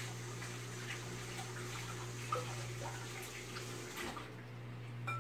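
A pot of chicken boiling in water on the stove: a steady hiss with small scattered bubbling pops, which drops away about four seconds in, over a steady low hum.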